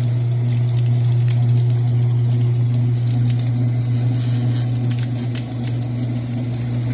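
Old Roper (Whirlpool) direct-drive top-load washing machine in its drain spin: a steady low motor hum with a crackling hiss of water being flung and pumped out of the tub.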